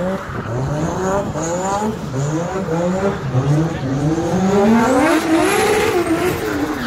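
Nissan Silvia S13 drift car doing donuts, its engine revving up and down in quick rises and falls with one longer climb near the end, over tyre squeal as the rear wheels spin.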